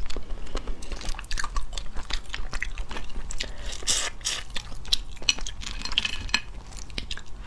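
Close-miked eating of boiled crayfish: shells cracking and being pulled apart, with biting, chewing and sucking of the meat. It sounds as a dense run of small clicks and crunches.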